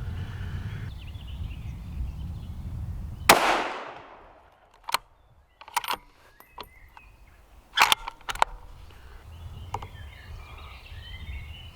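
A single shot from a Weatherby Vanguard bolt-action rifle about three seconds in, ringing out briefly. A few sharp clicks follow over the next several seconds, the bolt being worked for the next round, and birds chirp faintly near the end.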